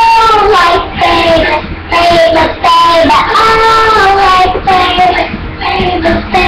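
A child singing loudly without accompaniment, in phrases of long held notes that slide up and down in pitch.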